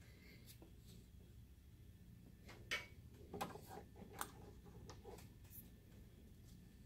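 Power cord handled and its plug pushed into the projector's power inlet: a few faint clicks and light knocks, the loudest about two and a half seconds in, over near silence.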